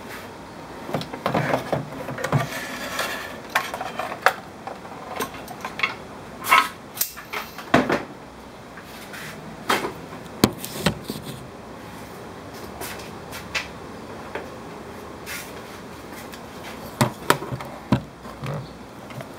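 Irregular knocks, clicks and rattles of plastic equipment cases and cords being handled, a few sharp single knocks among lighter taps.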